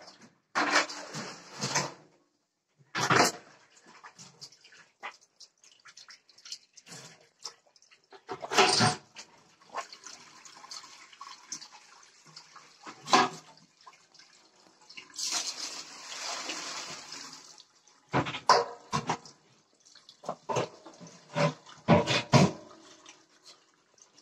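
Irregular knocks and clatter from handling a drum and its fittings, with a stretch of liquid running for about two seconds, some fifteen seconds in.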